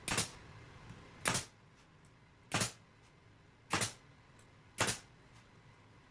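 DeWalt brad nailer firing five times, about a second apart, each a sharp snap as it drives a brad nail through the plywood base into the frame.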